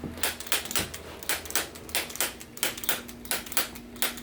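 Rapid, even mechanical clicking, about four clicks a second, over a low steady hum.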